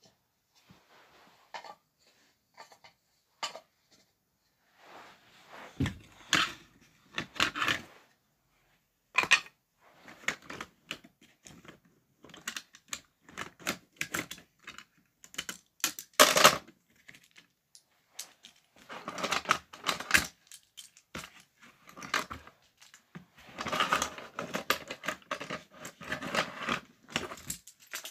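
Irregular clicks, knocks and clattering of small hard objects being handled, coming in bursts with short pauses and busiest near the end.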